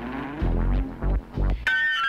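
Electronic background music: deep bass hits and a rising synth glide, then a bright bell-like chime near the end.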